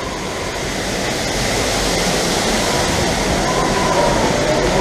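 Steady rushing noise of an amusement ride in motion, growing slowly louder, with a whine joining in about three and a half seconds in.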